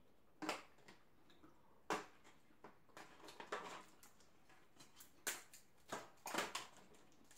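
Snow crab leg shells being snapped and cracked open by hand: irregular sharp snaps and crackles, some in quick little clusters.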